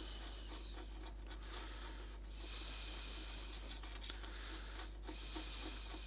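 Cloth scrubbing hard against a bakelite radio case to rub off stubborn paint: a steady hissing rub, louder in two stretches, about two seconds in and about five seconds in.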